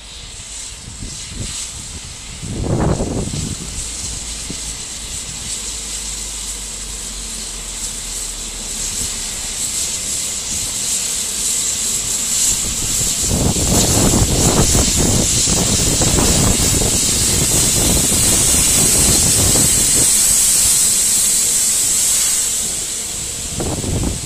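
Steam locomotive and its coaches passing close by, with steady steam hissing that grows louder as the engine nears. From about halfway through, a loud rumble of the engine and the coaches' wheels on the track joins the hiss, and it eases off a couple of seconds before the end.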